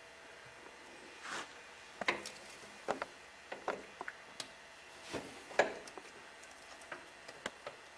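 Irregular light clicks and short scrapes of metal transmission parts being handled, as a one-way clutch is worked into place in an automatic transmission.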